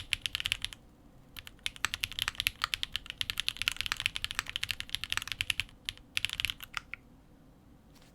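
Fast typing on a tenkeyless custom mechanical keyboard with Gateron RAW switches mounted in an aluminium plate, the switches stock with no added lube: rapid runs of keystroke clacks, broken by two short pauses, that stop about seven seconds in.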